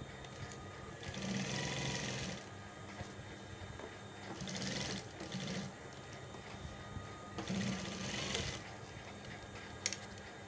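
Sewing machine stitching a fabric collar band, running in three short bursts with pauses between as the fabric is guided. A couple of sharp clicks come near the end.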